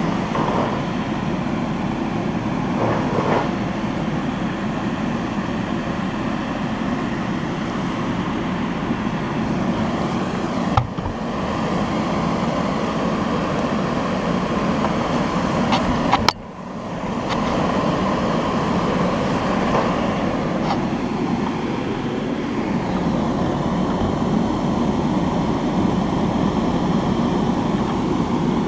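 An electric fan running steadily, a continuous whoosh, with a couple of brief clicks from handling about eleven and sixteen seconds in.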